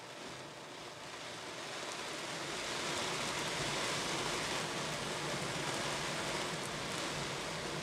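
Water spray from a Christ automatic car wash beating on the foam-covered windscreen and roof, heard from inside the car. It gets louder about two seconds in and then stays steady.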